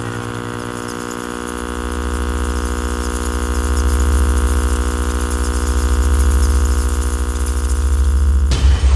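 A steady droning hum with many evenly spaced overtones at one fixed pitch and a fast low pulse beneath it, swelling a little in loudness, then breaking off suddenly about eight and a half seconds in.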